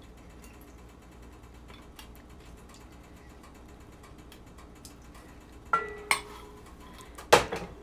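Kitchen utensil handling: faint light ticks, then a metal clink with a brief ringing tone a little past halfway, a second click, and a louder single knock near the end, as cookware and utensils are handled while butter is added to the pot.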